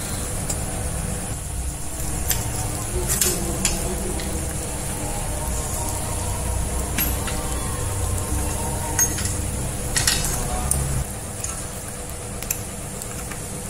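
Metal parts of a Mailtank grinder stand being handled during assembly: a few scattered sharp clicks and clinks of steel bolts and the stand's arm. Under them runs a steady low background rumble.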